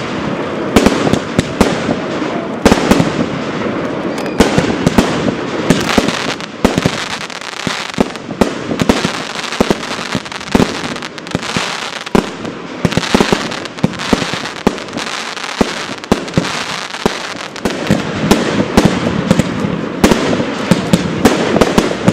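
Aerial fireworks display: shells bursting with many sharp bangs in quick succession, some overlapping, over a continuous noisy background of crackle and rumble.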